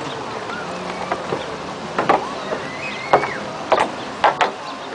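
Lakeside ambience: a steady wash of water and wind, broken in the second half by about six sharp clicks and knocks, with a brief high whistle near the middle.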